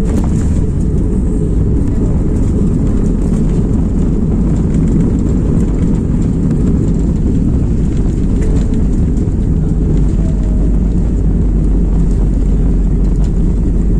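Inside the cabin of an Airbus A320 on its landing roll: a loud, steady low rumble of the engines and the wheels on the runway.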